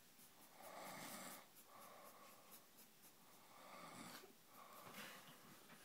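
Faint snoring from a sleeper: a slow, regular run of noisy breaths in and out.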